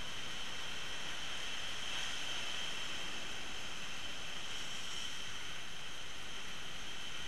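Steady outdoor background hiss with a constant high-pitched ring on top, unchanging throughout, with no distinct knocks or clicks.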